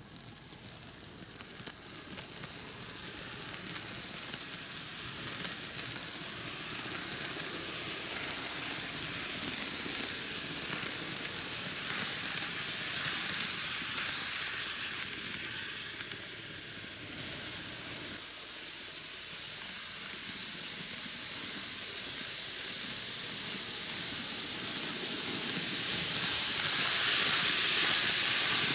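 N gauge model train (MicroAce Keio 9000 series) running on superelevated track, its metal wheels on the rails making a steady, high hiss with faint clicks. It grows louder as the cars pass close, eases off around the middle, and is loudest near the end.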